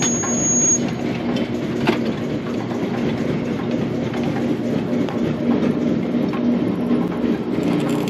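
Massey Ferguson large square baler running through a tie cycle: steady mechanical running with rattling and clanking from the needle and knotter drive, and a sharp knock about two seconds in.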